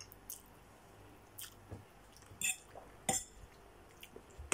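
A person eating noodles close to the microphone: quiet chewing and slurping, with about five short, sharp wet mouth sounds spread through.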